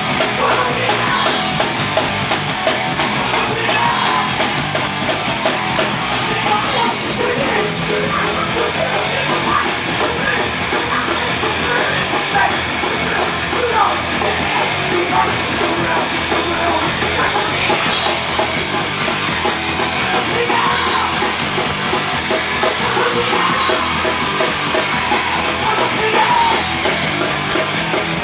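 A live rock band playing loudly, with electric guitars and a drum kit, at a steady level without a break.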